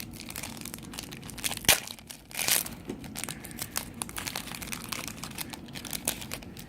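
Foil trading-card pack wrapper crinkling while cards are handled and slid through the hands: a run of small clicks and rustles, with a sharp snap a little under two seconds in and a louder rustle just after.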